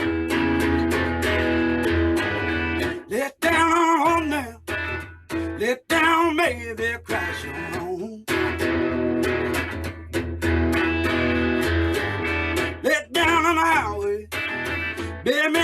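Blues guitar music: strummed chords alternating with wavering melodic runs, broken by a few short pauses.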